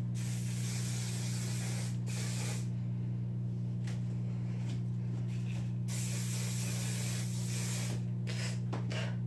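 Aerosol can of Garnier Fructis ultra strong hold hairspray spraying in bursts: a two-second spray, a short one right after, another of nearly two seconds about six seconds in, then a few short puffs near the end. A steady low hum runs underneath.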